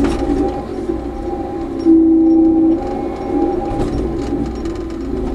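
Cat D6K dozer's diesel engine running, heard from inside the cab as the machine works. A louder steady whine rises over it for just under a second about two seconds in.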